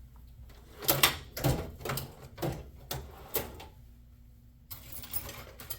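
Rummaging through tools in search of tweezers: a run of sharp clatters and knocks, then about a second of sliding, rustling noise near the end.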